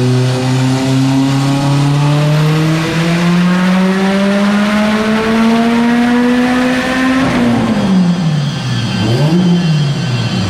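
Turbocharged flat-four engine of a built 2011 Subaru STI, its revs climbing steadily in one long pull. About seven seconds in the revs fall away, then rise and fall a couple of times.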